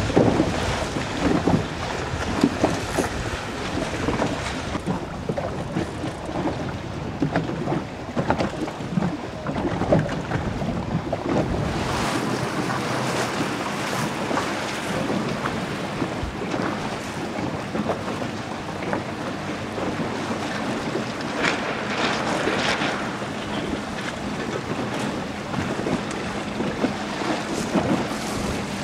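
Wind buffeting the microphone over splashing water and small waves, recorded from a boat on open water. The sound is a steady rushing noise broken by frequent short splashes, and it changes character about twelve seconds in.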